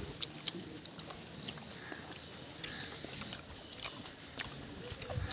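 Eating and serving a meal: scattered small clicks and clinks of food and utensils, at a low level.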